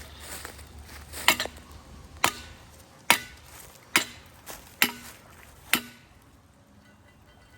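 Six evenly spaced hammer blows on metal, a little under a second apart, each leaving a short ring.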